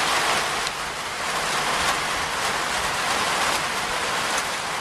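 Heavy rain pouring down: a steady, even hiss of falling water.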